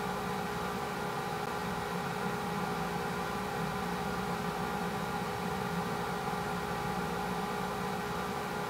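Steady machine hum with an even hiss and several unwavering tones, not changing in level or pitch.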